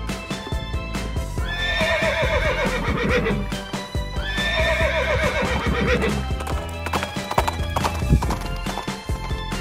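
A horse neighing twice, each whinny about two seconds long with a falling, quavering pitch, with hooves clip-clopping, over background music.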